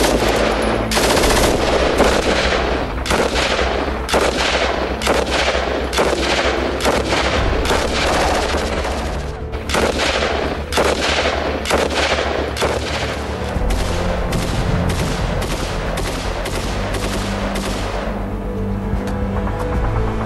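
Automatic gunfire in repeated short bursts, about one a second, that stops near the end, over background music with a steady low bass line.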